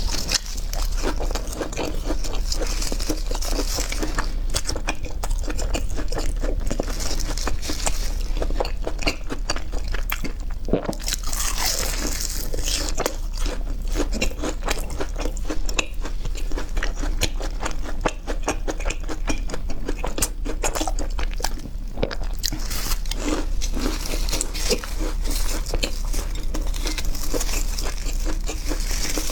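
Close-miked eating of crunchy fried food: biting and chewing, a continuous run of crisp crunches.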